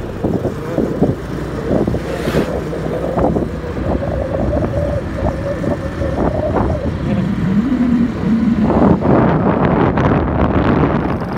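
Motorbike engine running while riding, with wind buffeting the microphone.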